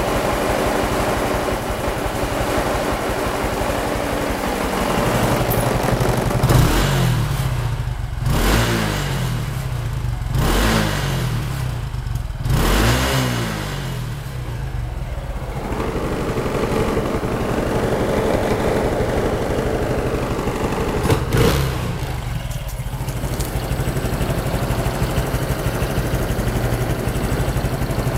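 Honda Dream 110 fuel-injected single-cylinder four-stroke motorcycle engine idling, revved up four times about two seconds apart, then idling again with one more short blip later. The seller describes it as running without abnormal noises.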